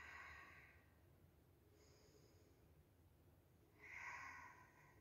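Near silence, with a faint breath out through the nose or mouth about four seconds in, as the exercise position is held.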